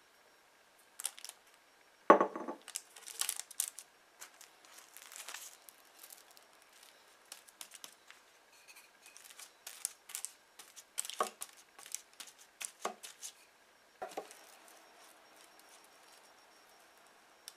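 Plastic cling film crinkling and crackling under hands as cookie dough is wrapped in it, with one loud thump about two seconds in. From about fourteen seconds in, a soft steady rustle as a rolling pin is rolled over the wrapped dough.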